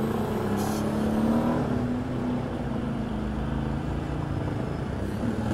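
Can-Am ATV engine running under way, its pitch rising a little in the first two seconds and then holding steady.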